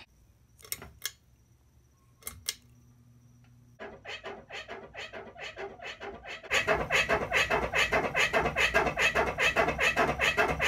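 Ceiling fan pull-chain switch clicking a few times, then the spinning fan's air buffeting the phone's microphone in a rapid, even flutter. The flutter starts about four seconds in and gets much louder about two and a half seconds later.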